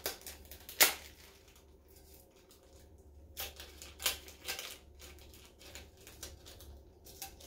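Glitter-coated repositionable double-sided adhesive sheet peeled off a stainless steel tumbler: scattered sticky crackles, the loudest about a second in, with a few more between three and five seconds in.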